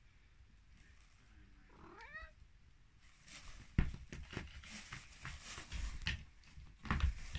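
A cat gives one short rising meow about two seconds in. Then a thin plastic shopping bag crinkles and rustles in bursts as a cat rolls and thrashes about inside it on the carpet, with a few soft knocks.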